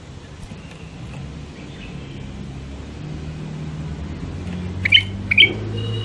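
White-eared bulbul calling: a few faint chirps in the first half, then two short, loud chirps about half a second apart near the end, over a low rumble that grows louder.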